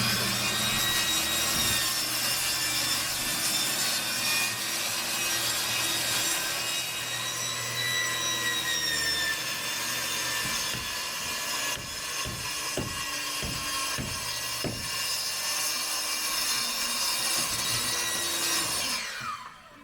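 Electric saw cutting through wood lumber, a steady loud rasp with a wavering motor whine as the load changes, a few sharp knocks in the middle, and the motor winding down near the end.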